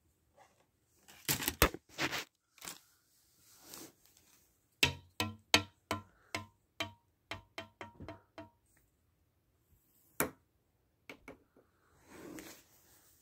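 Electronic toy sounds: a few sharp clicks and taps, then a quick run of short, even electronic beeps at about four a second that stops after a few seconds, with one more click later.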